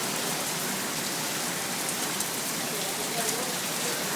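Heavy rain pouring steadily, with drops pattering on surfaces.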